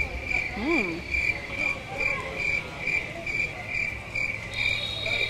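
Crickets chirping in an even rhythm, about two chirps a second, with a short rising-and-falling hum from a woman's voice about a second in.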